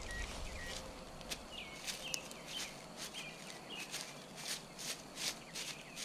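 Dry fallen leaves crackling and rustling in short, irregular crunches as leaf litter is pushed aside by hand and dug into, with a few short high chirps in the background.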